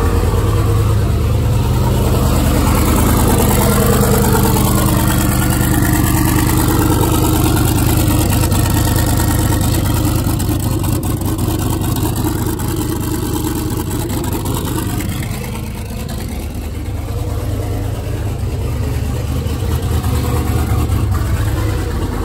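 Turbocharged LS V8 running at a steady idle just after start-up, with no downpipe fitted, so the exhaust leaves straight from the BorgWarner S485 turbine housing. The idle is loud and even, easing slightly for a moment about two-thirds of the way through.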